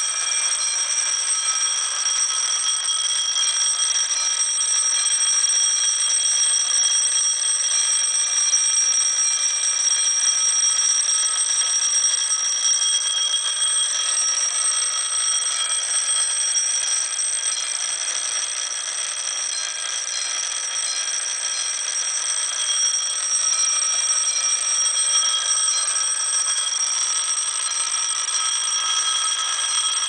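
Autocall electric fire alarm bells ringing steadily, set off from a pull station, with the control panel's trouble bell also ringing.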